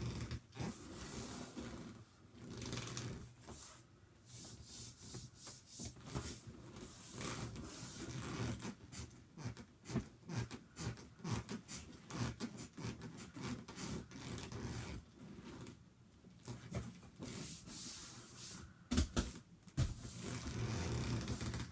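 Rubbing and creaking of a large inflatable toy wolf as a person rides and bounces on it, in irregular surges with a few sharper knocks near the end.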